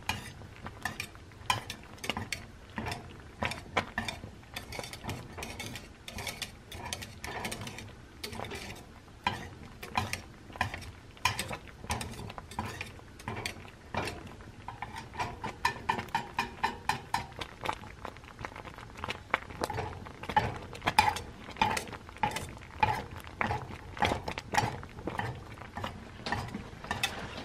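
Wire whisk stirring thick blue corn mush in a stainless steel saucepan, its metal wires clicking and scraping against the pan in a steady rhythm.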